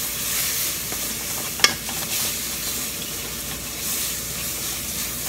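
Chicken and spices sizzling in a kadai while a wooden spatula stirs and scrapes through them, with a single sharp knock about one and a half seconds in.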